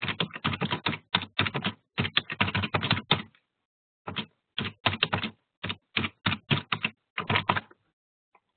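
Typing on a computer keyboard in quick, irregular runs of keystrokes, with a short pause a little over three seconds in, stopping near the end. The sound is thin, as if heard over a web-conference line.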